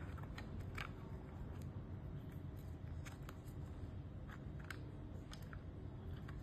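Scattered light clicks and taps of small parts and hand tools being handled while working on a remote-control car, coming at irregular intervals, over a steady low hum.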